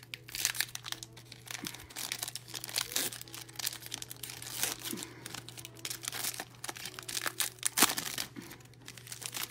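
A foil pack of trading cards being torn open and handled, with irregular crinkling and crackling of the wrapper.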